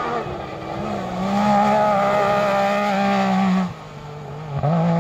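Yamaha side-by-side (SSV) rally car's engine pulling at high, steady revs, then dropping off sharply a little past halfway as the driver lifts, and picking up again near the end.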